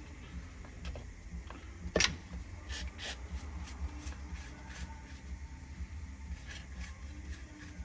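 Small clicks and light taps from handling an opened Hyundai smart key's plastic case and a CR2032 coin-cell battery as the new cell is fitted, with one sharper click about two seconds in.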